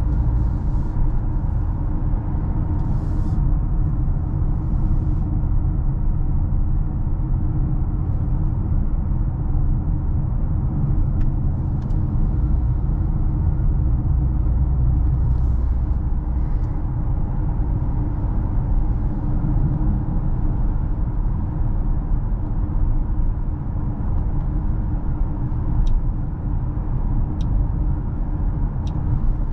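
2021 Mercedes-Benz GLA with the 1.3-litre, 163 hp turbocharged four-cylinder petrol engine driving: a steady engine and road rumble. A few faint ticks come near the end.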